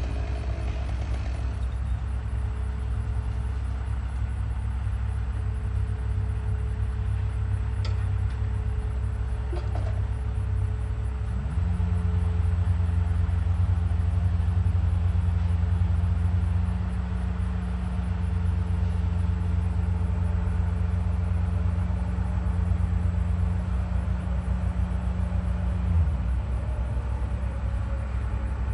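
Heavy truck engine running steadily, speeding up about a third of the way in and settling back down near the end.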